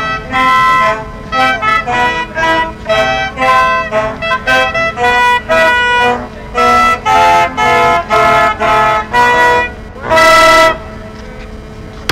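A brass instrument playing a tune in short, separate notes, ending on a longer held note about ten seconds in.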